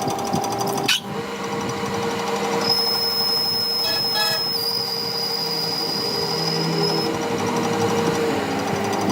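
A workshop machine running steadily, with a sharp click about a second in and a high, thin whine through the middle.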